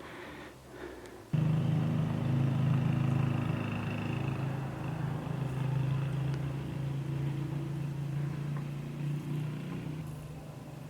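An engine running steadily, starting abruptly about a second in and easing off near the end.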